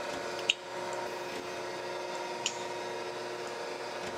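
Thompson hydraulic surface grinder running: a steady hum from the spinning wheel and the hydraulic table drive, with a sharp clack twice, about two seconds apart, as the reciprocating table reverses against its stops. The wheel is being fed down slowly toward the platen, on the point of touching off.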